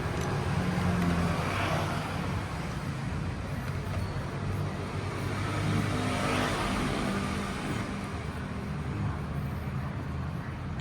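Steady road-traffic rumble with two vehicles passing, one near the start and one about halfway through.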